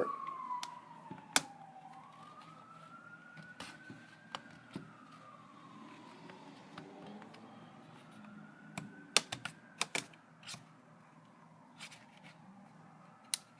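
Sharp plastic clicks and snaps, scattered and clustered about two-thirds through, as a laptop's plastic cover is pried apart, while an emergency-vehicle siren wails slowly up and down in the background.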